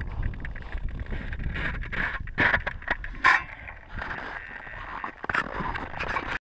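Rumble from the RC plane's snow skis sliding over snow, heard through its onboard camera microphone. It gives way to rustling handling noise and two sharp knocks, about two and a half and three seconds in, as the plane is picked up.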